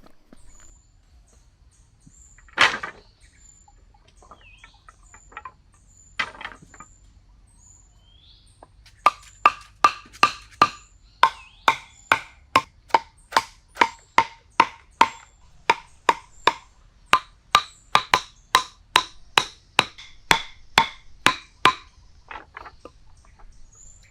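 Two single sharp knocks, then a long even run of sharp, ringing knocks, about two a second, that stops shortly before the end. Faint high chirps sound in between.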